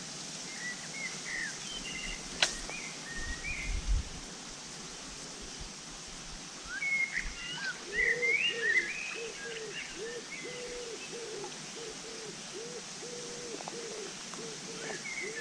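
Birds calling by the river: short high chirps early on and again about halfway, then a low cooing call repeated in a steady rhythm through the second half. A single sharp click comes a couple of seconds in.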